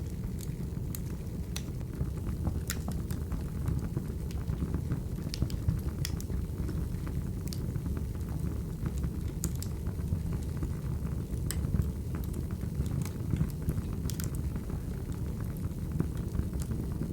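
Wood fire crackling: a steady low rumble of burning logs with sharp pops at irregular intervals.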